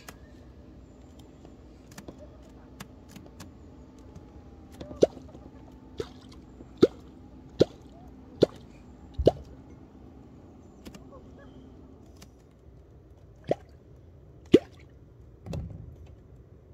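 A wooden catfish clonk (vábnička) struck on the water surface to call catfish, giving deep hollow plops with a short falling tone. Six plops come under a second apart, then after a pause three more, over a faint steady hum.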